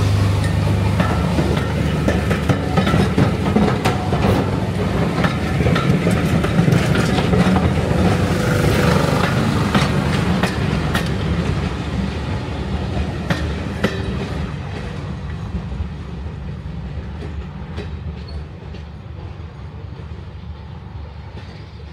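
Railway passenger coaches rolling past on the track, a heavy rumble with wheels clicking over the rail joints, fading away as the train moves off down the line.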